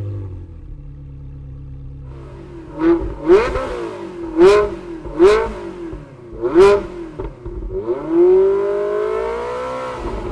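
2004 Ferrari 360 Challenge Stradale's 3.6-litre V8 exhaust idling, then blipped in five quick revs, each rising sharply and falling straight back. It is then held up at higher revs for about two seconds and eases back toward idle near the end.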